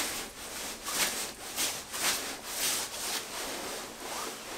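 Canada Goose Expedition parka's shell fabric being rubbed in a noise test: loud, rhythmic swishing at about two to three strokes a second.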